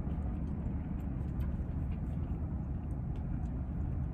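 Steady low rumble heard from inside a car, with a few faint small clicks over it.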